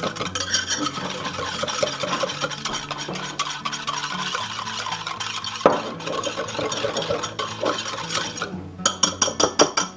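Wire whisk beating a thick ketchup, brown sugar and Worcestershire sauce mixture in a mixing bowl: a steady wet scraping and swishing with the wires ticking against the bowl. There is one sharp knock in the middle and a quick run of sharp clinks near the end.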